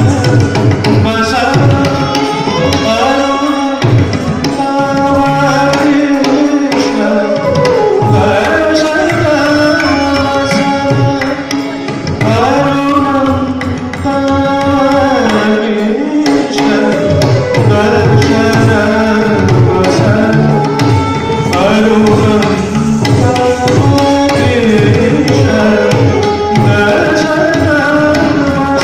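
Live Odissi classical dance accompaniment: a bansuri bamboo flute playing a gliding melody over hand-drum strokes.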